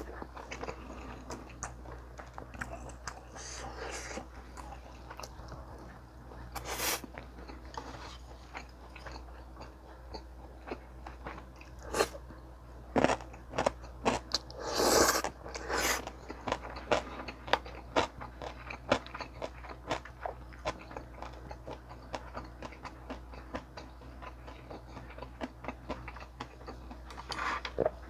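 A person eating close to the microphone: wet chewing with repeated sharp crunches and clicks. A few louder crunches come around a quarter of the way in, in the middle, and near the end.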